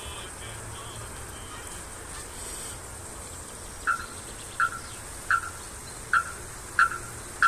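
An animal calling: a run of short, identical calls about every 0.7 seconds, starting about halfway in, over a faint steady high-pitched hiss.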